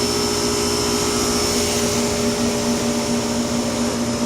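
A steady machine hum and whir, unchanging throughout, with a thin high whine over it.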